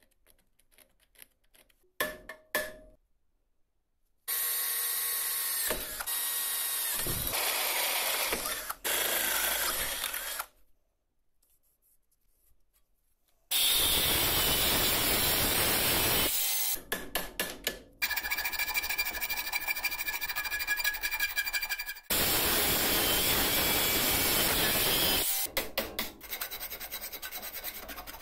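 Angle grinder with a thin cut-off disc cutting into a steel plate held in a vise, in several long stretches of steady, loud grinding that start and stop abruptly. A few clicks come before it, and short scraping strokes follow near the end.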